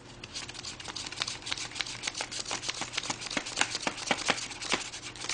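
Paper wings of an origami flapping bird clicking and rustling as its tail is pulled back and forth, a quick run of crisp paper clicks, several a second.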